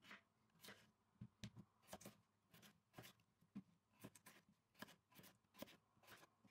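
Kitchen knife cutting peeled raw potatoes on a wooden cutting board: faint, irregular taps of the blade through the potato onto the board, roughly two to three a second.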